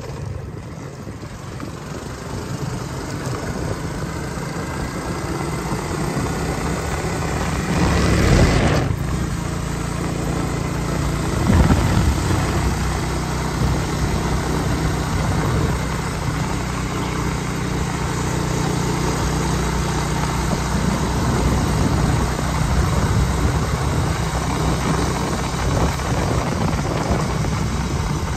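A vehicle's engine running steadily on the move, over a haze of road and wind noise. The engine grows louder over the first few seconds, and two brief louder swells of noise come about eight and twelve seconds in.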